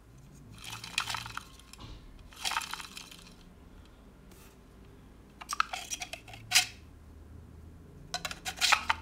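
Hard 3D-printed plastic parts of a small siren clicking and rattling against each other as they are handled, with the rotor pulled out of its slotted housing, in four short clattery bursts. The siren is not being spun.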